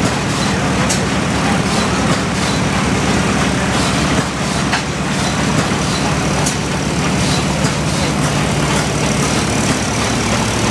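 Old stationary gas engine running steadily: an even low drone with irregular clicks and knocks over it.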